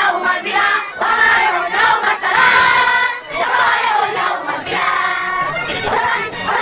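A large group of children singing together in unison, in short phrases with brief breaks between them.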